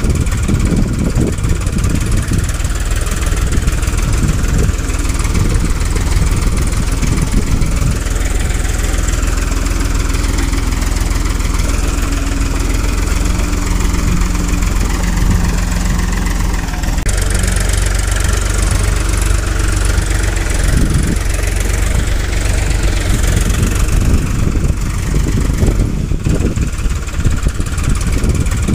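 Steady, low tractor-style engine running sound accompanying a toy tractor that has no real engine. The sound changes character about 17 seconds in.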